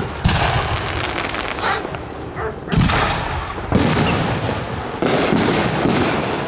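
Aerial firework shells bursting in the sky: a run of sharp bangs about a second apart, each trailing off in rumbling echo and crackle.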